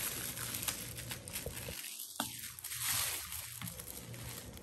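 Crinkling and rustling of an Easter egg's printed plastic wrapper as it is untied and pulled off the egg, with scattered small clicks and a denser burst of rustling about three seconds in.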